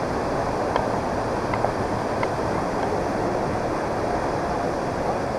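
Steady rushing roar of a waterfall, an even wash of falling water.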